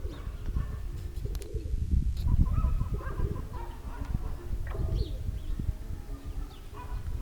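Domestic pigeons cooing in repeated short calls, over a steady low rumble of wind buffeting the microphone.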